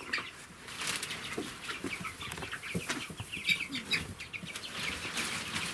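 Four-week-old chicks cheeping and peeping in short, rapid calls, over the rustle of brooder bedding being scooped by gloved hands.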